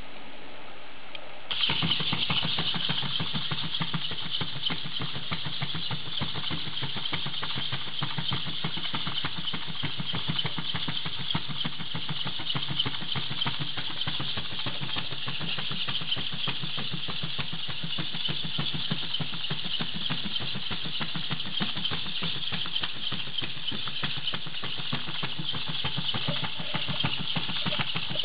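The servo motors of a six-legged hexapod robot running together as its legs step and turn the body in place: a steady mechanical buzz that starts suddenly about a second and a half in and holds on.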